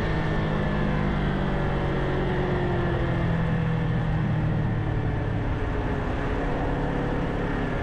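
Kawasaki Ninja 500's parallel-twin engine running steadily while riding, its note easing slightly lower about halfway through, under a steady rush of wind noise.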